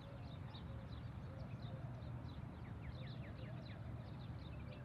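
Birds chirping, with short high calls throughout and a few quick falling calls about two and a half seconds in, over a steady low rumble.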